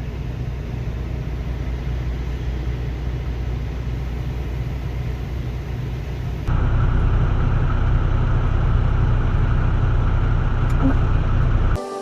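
Steady low engine and road rumble of a semi truck on the move. About six and a half seconds in it cuts abruptly to a louder rumble with a hiss on top, which stops suddenly near the end.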